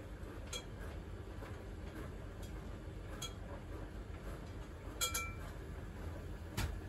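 Dishes and glassware clinking as they are handled at a kitchen sink: a few light clicks, then a double clink with a brief ring about five seconds in, and a knock near the end.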